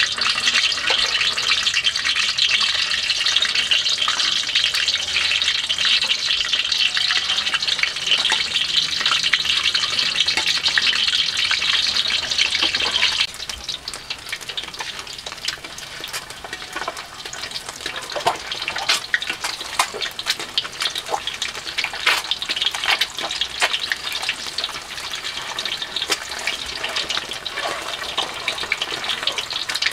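Peeled boiled eggs frying in hot oil in a steel wok: a loud, steady sizzle that drops suddenly to a quieter bubbling sizzle about halfway through, with many sharp crackles and pops.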